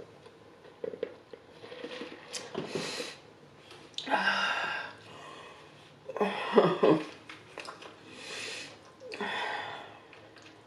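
A person slurping soup from a spoon with noisy breaths: several separate slurps, each about half a second to a second long, the loudest a little past halfway.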